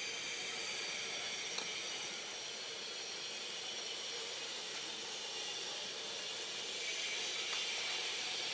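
Steady dense insect chorus, a high hiss made of many fine unbroken tones, swelling slightly near the end. A faint click about one and a half seconds in.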